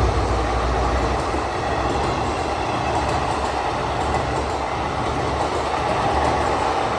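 Express passenger train rolling past with a steady rumble of wheels on rail. A heavier low rumble dies away about a second in.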